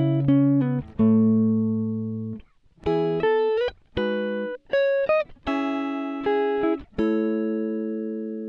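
Background music: a solo guitar playing a slow melody of single plucked notes that ring and fade, with a few short slides between notes.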